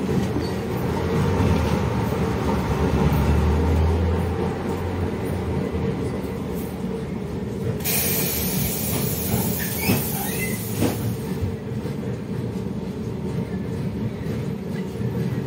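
Cabin sound of a LiAZ-677M city bus, its ZIL V8 petrol engine and drivetrain running with a steady low drone that is heaviest in the first few seconds and then eases. About eight seconds in, a loud hiss starts and lasts three or four seconds.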